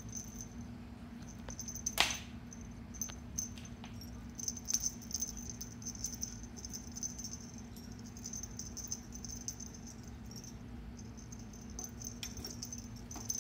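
Small jingle bell and beads on a feather wand cat toy jingling and rattling in short bursts as a kitten bats at it, with light taps and one sharp knock about two seconds in. A steady low hum runs underneath.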